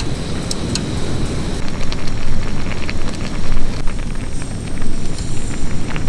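Portable gas stove burner running under an aluminium mess tin while the stew inside boils. Small bubbling pops and crackles come thicker from about two seconds in.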